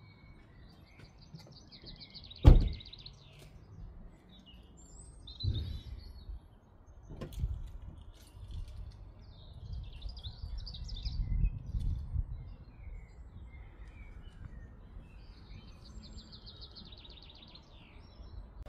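Small birds singing, with a trilled song phrase repeated several times. Over it come a few sharp knocks and clunks as gear is handled at a car, the loudest by far about two and a half seconds in, with a low rumbling of handling a few seconds later.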